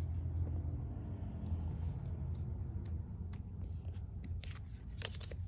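Tarot cards being handled on a cloth-covered table: a few soft clicks and slides, clustered just before the end, as cards are drawn and turned over. A steady low hum runs underneath.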